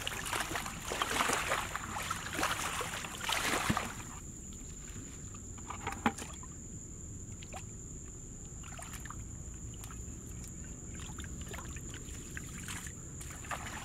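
Muddy water splashing and sloshing as a plastic bucket scoops it up and throws it out of a shallow pool, bailing the pool down, for about the first four seconds. After that, quieter small splashes and drips as a hand gropes through the muddy water, with one sharp click about six seconds in and a thin steady high whine throughout.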